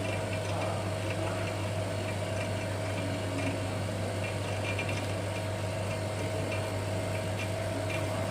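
A machine running with a steady low hum and a steady higher tone over a constant whir, with a few faint light clicks.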